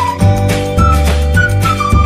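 Background music: a high, flute-like melody sliding between notes over a repeating bass line.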